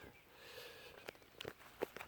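A few faint, short clicks and taps, about four in the second half, over a quiet background.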